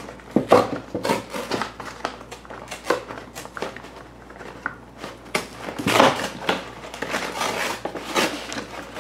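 Cardboard toy box being opened by hand: the end flap prised and pulled back and the cardboard torn, in irregular rustles, scrapes and clicks, loudest about six seconds in.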